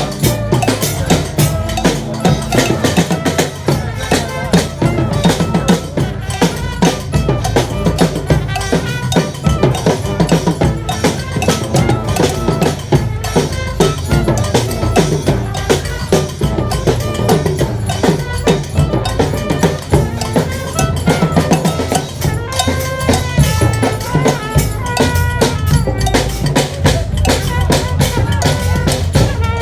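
Street brass band playing live: horns carry a melody over drums and cowbell keeping a steady, driving beat.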